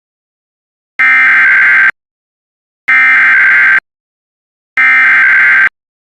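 Emergency Alert System SAME header: three identical bursts of warbling two-tone digital data, each about a second long and a second apart. They mark the start of a new weather warning broadcast.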